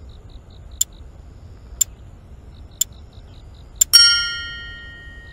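Countdown-timer sound effect: a clock ticking sharply about once a second, with faint quicker ticking between the beats. About four seconds in, a single bright bell ding rings out and fades, marking the end of the countdown as the answer is revealed.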